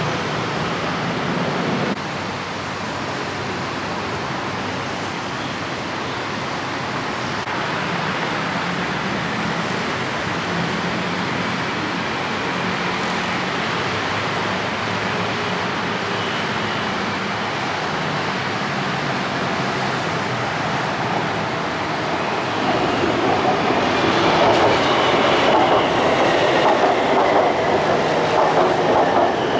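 BTS Skytrain electric metro train running on its track, wheels on rail. It grows louder from about three-quarters of the way through, with a high steady whine coming in near the end.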